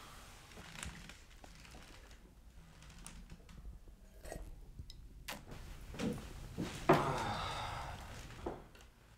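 Room sounds of people moving and handling things: scattered small knocks and clicks, then a sharper knock about seven seconds in followed by a second or so of rustling.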